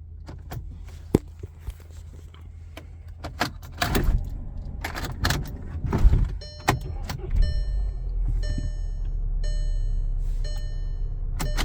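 Key clicking into the ignition of a 2012 Volkswagen Passat CC, then the starter cranking and the engine catching and settling into a steady idle, showing the newly programmed key is accepted. An electronic chime beeps repeatedly over the idle.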